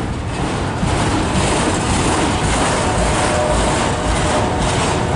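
Freight cars of a slow CSX mixed freight train rolling past, a steady rumble of steel wheels on the rails.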